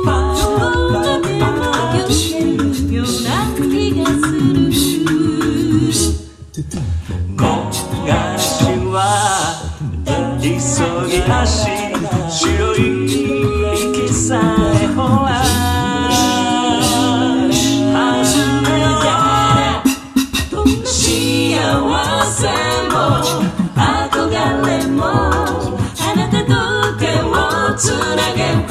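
Mixed-voice a cappella group singing in close harmony over a low sung bass line, with beatboxed vocal percussion keeping a bossa nova groove. The sound thins out briefly about six seconds in and again about twenty seconds in.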